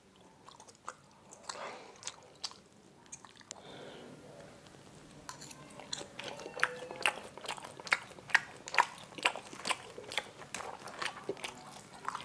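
Close-up eating sounds of bakso: chewing at first, then from about five seconds in a fork and knife cutting through the meatballs, with many sharp clicks of cutlery against the tray.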